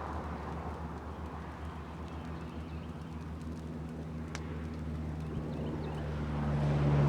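An engine running steadily, getting louder toward the end.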